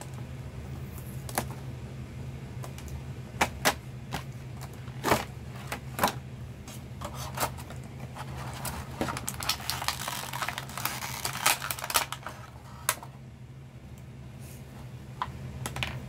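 Stiff clear plastic blister packaging being handled and pried open: scattered sharp clicks and crackles, busiest about ten seconds in.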